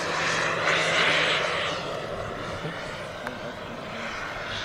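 Radio-controlled scale AS350 Écureuil model helicopter in flight, its rotors making a steady rushing noise. The noise is louder for the first second and a half, then drops and stays lower as the model moves off.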